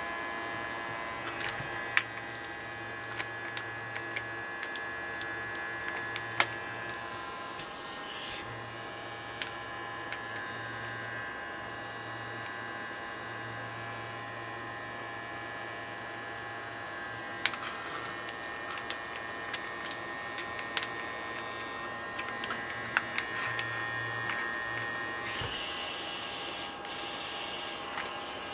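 Small battery-powered filament vacuum pump running steadily, a motor hum and whine, as it draws the air out of a resealable storage bag. Scattered sharp clicks throughout, and the tone shifts about three seconds before the end.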